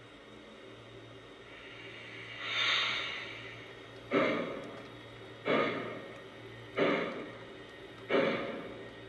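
Postwar Lionel O-gauge train rolling slowly along three-rail track, with a regular clack about every 1.3 seconds over a steady low hum.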